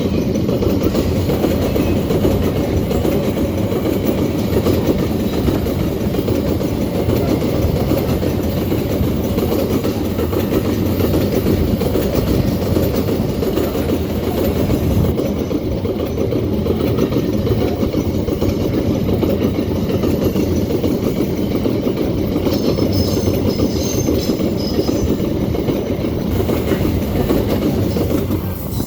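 Empty iron-ore freight wagons rolling past on a curve: a steady heavy rumble of wheels on rail with clickety-clack, and a faint high wheel squeal for a few seconds past the two-thirds mark. The sound drops away suddenly near the end.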